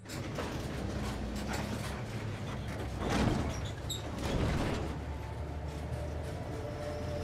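Vehicle ride heard from inside the back of a truck: a steady low rumble with creaking and rattling of the vehicle body.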